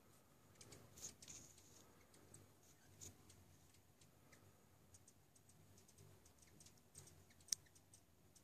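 Near silence broken by faint, scattered, high-pitched chips from hummingbirds at a feeder, with one sharper click about seven and a half seconds in.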